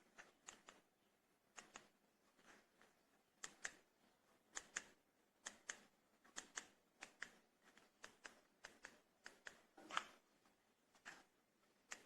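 Faint, irregular clicks and light taps, one to three a second, with a louder click about ten seconds in.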